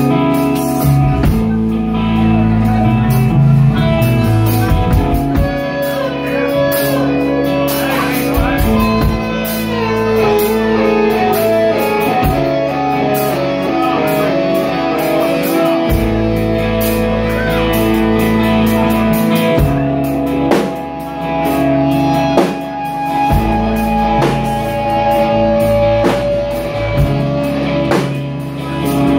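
Live rock band playing: electric guitars strumming chords over bass and a drum kit keeping a steady beat.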